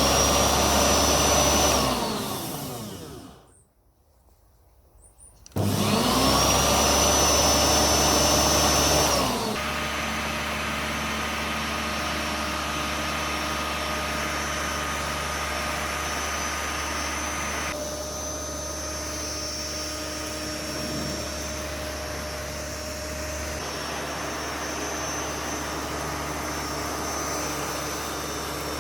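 Flymo Easiglide 300 electric hover mower's motor spinning up with a rising whine, then switched off and winding down. After a short pause it starts again with a rising whine and runs. A few seconds later it settles into a steady, quieter run.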